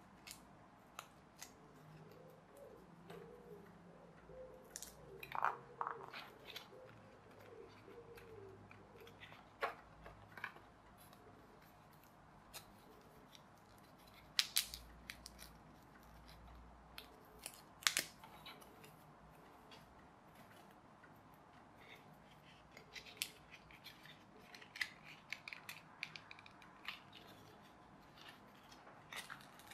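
Scattered small clicks, snaps and rustles of a printed card pullback toy car kit being put together by hand, as pieces are pressed out of their card sheet and fitted onto the body, with a couple of sharper snaps in the middle.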